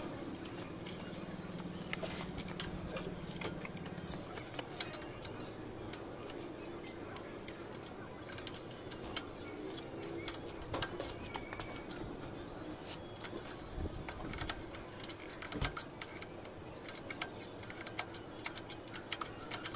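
Irregular light metallic clicks, taps and jingles from hands and tools working on a Honda 125 motorcycle's front end during a steering-head bearing job, with a couple of duller knocks in the second half, over a steady low background hum.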